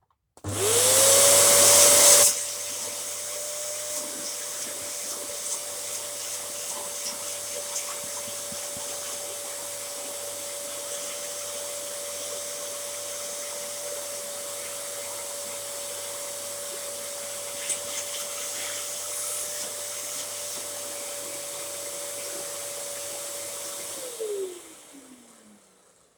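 Dyson DC07 upright vacuum cleaner switched on: the motor spins up with a loud rush of air for the first two seconds, then runs with a steady whine and hiss. Near the end it is switched off and the whine falls away as the motor winds down.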